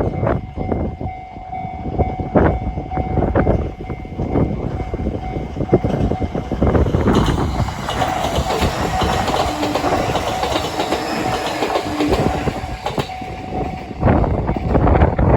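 A train passing over a Japanese level crossing, its running noise swelling in the middle and fading near the end, while the crossing's warning bell rings steadily throughout. Heavy wind buffets the microphone.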